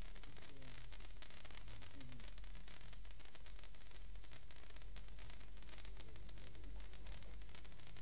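Two handheld morning-glory sparklers burning with a steady fizzing hiss full of fine rapid crackle, over a low steady hum.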